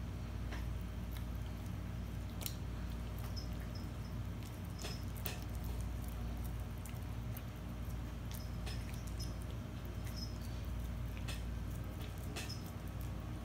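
A bloodhound puppy chewing and gnawing on a piece of bread held between its paws, making irregular sharp clicks and smacks of mouth and teeth, over a steady low background hum.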